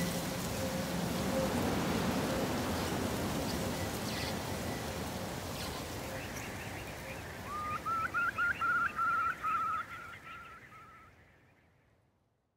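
Estuary ambience, a steady hiss, with a wading bird calling in a run of about ten short, rising whistled notes from about halfway through. The whole thing fades out near the end.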